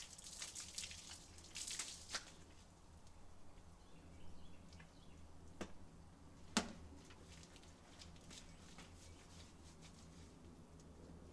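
Garden hose water splashing on wet concrete and hands scrubbing a wet dog's coat, busiest in the first two seconds, then quieter. A single sharp click a little past the middle is the loudest sound.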